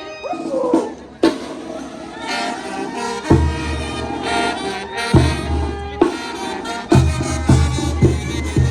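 Live traditional music: sustained, reedy wind instruments playing over a deep bass drum, which comes in about three seconds in and beats more steadily near the end.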